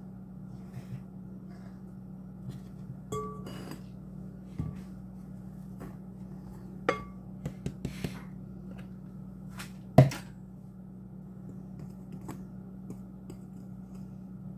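Scattered clinks and knocks of a measuring cup and a wire whisk against a glass mixing bowl as flour is poured in and stirred, the sharpest knock about ten seconds in, over a steady low hum.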